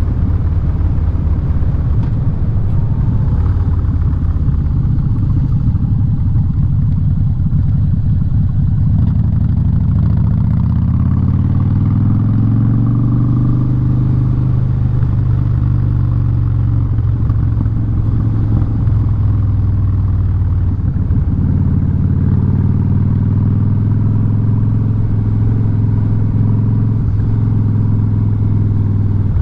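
Harley-Davidson Street Bob's V-twin engine running through a loud Vance & Hines aftermarket exhaust while riding. About ten seconds in the engine note rises as the bike accelerates, then holds steady, easing off a little around twenty seconds.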